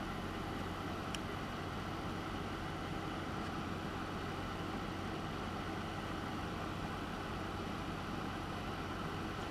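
Steady electrical hum and hiss, with one faint tick about a second in.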